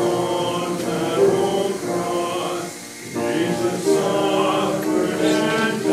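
A congregation singing a hymn together in slow, held notes, with a brief break between lines about three seconds in.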